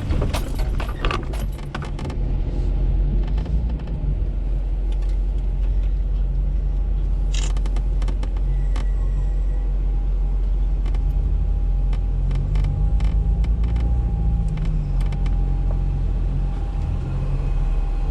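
Jeep engine running at low speed with a steady low rumble, with scattered clicks and rattles, most of them in the first couple of seconds.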